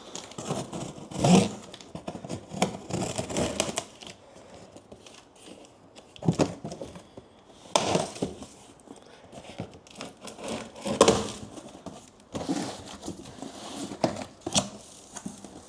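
A cardboard box and its packaging being opened by hand: irregular scraping, crinkling and tearing, with a few sharp knocks, the loudest about a second in and about eleven seconds in.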